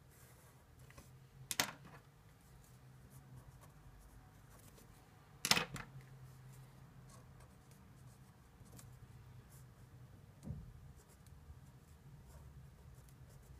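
Marker pens drawing on paper, faint scratching strokes over a low steady hum, with sharp clicks as the pens are handled: two loud ones about a second and a half and five and a half seconds in, and a softer one about ten and a half seconds in.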